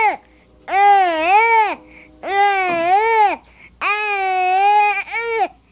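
A baby's loud, drawn-out vocal squeals: the tail of one at the start, then three more, each about a second long, rising and falling in pitch with short pauses between them.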